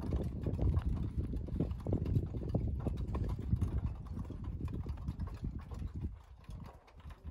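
Irregular crunching and clicking of rough volcanic rock, many small knocks close together over a low rumble, growing fainter near the end.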